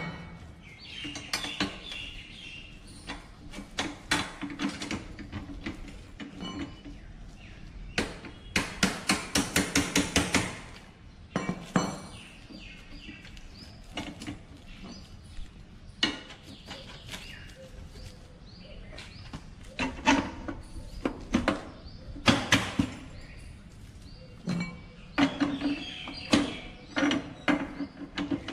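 Hand tools working the bolts of a motorcycle's pannier bracket and rear frame: scattered metal clinks and knocks. About nine seconds in comes a fast run of about ten clicks, like a ratchet wrench turning.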